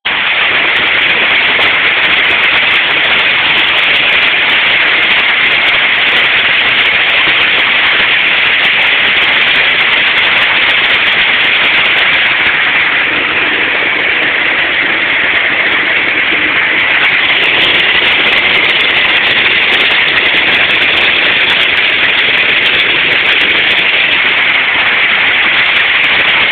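Heavy rain pouring down in a loud, steady hiss that does not let up.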